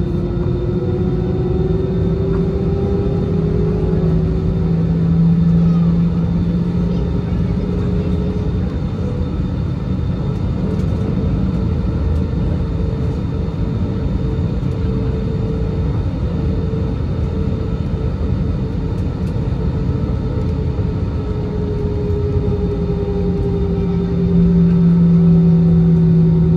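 Cabin noise of an Airbus A320-216 taxiing, heard from a seat over the wing: a steady rumble with the hum of its CFM56 engines at low taxi thrust, its tones drifting slowly in pitch. It swells briefly around five seconds in and again near the end.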